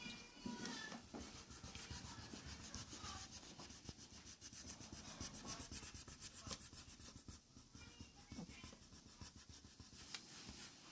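Faint scratching of a drawing tool on paper in quick, repeated strokes.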